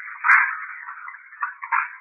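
Panasonic IC voice recorder playing back a recording through its small built-in speaker: a thin, narrow-sounding, indistinct stream of sound that swells and fades, with a sharp click about a third of a second in.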